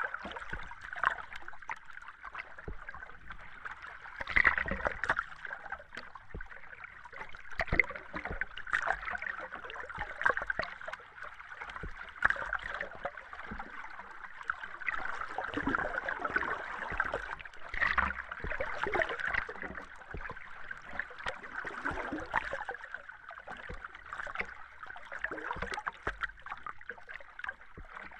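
Underwater ambience recorded beneath the surface: a steady muffled wash of water with irregular bubbling and small clicks and pops throughout.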